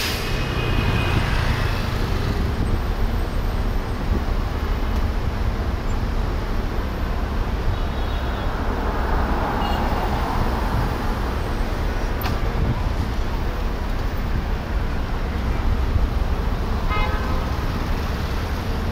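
Steady low rumble of a car moving in slow, dense city traffic. A few short car-horn toots sound near the start, about 8 seconds in and near the end.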